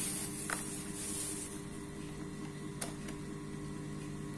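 Plastic bag and bubble wrap rustling as a part is unwrapped by hand, with a few light clicks, over a steady low hum.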